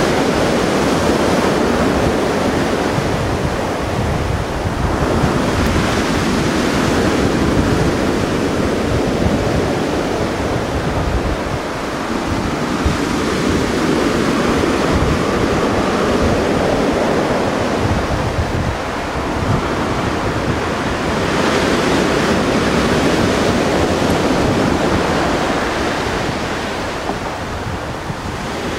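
Sea surf, a steady wash of waves rising and easing every few seconds, with wind buffeting the microphone.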